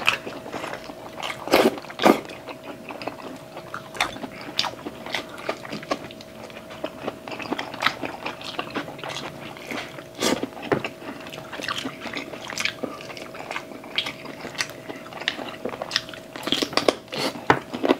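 Close-miked mukbang eating of chicken adobo and pork spare ribs by hand: chewing, biting meat off the bone and wet mouth and finger-licking smacks. There are a few louder clicks about two seconds in and around ten seconds. A faint steady hum runs underneath.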